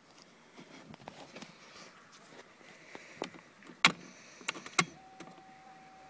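Scattered clicks and two sharp, loud clicks from the ignition of a Fiat Seicento 899cc that will not start, with no engine cranking or running. From about five seconds in, a steady electronic beep tone sounds.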